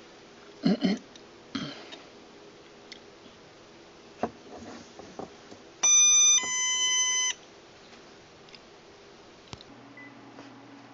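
NE555 'ding-dong' doorbell kit's small speaker sounding once: a higher electronic tone for about half a second, then a slightly lower tone for about a second, cutting off suddenly. A couple of knocks and a few clicks come before it.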